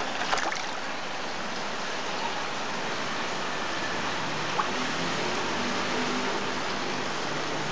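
Steady rush of water in a fish tank, with brief splashing just after the start as a hand and a large fish stir the water.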